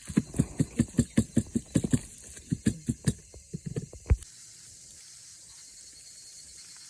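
A quick run of dull thumps, about five a second, that stops about four seconds in, leaving a steady faint hiss.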